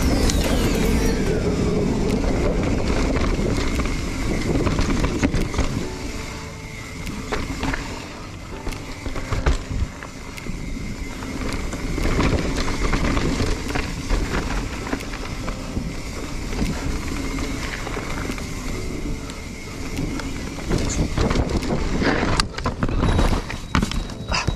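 Mountain bike descending a dirt trail: tyres on dirt, the bike rattling and clattering over bumps, and wind on the microphone. Near the end come a cluster of loud knocks as the rider goes over the handlebars and crashes.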